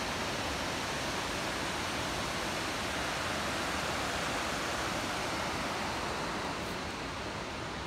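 Steady rushing of a mountain torrent's water, cutting in abruptly.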